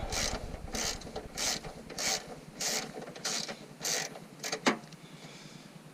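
Hand ratchet wrench clicking in repeated strokes, about one and a half a second, as a bolt is worked loose, followed by a single sharp click.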